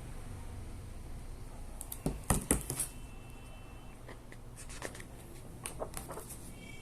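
Handling noise from a hardcover earbook being turned over and its pages moved: a quick cluster of taps and knocks about two seconds in, then scattered light clicks.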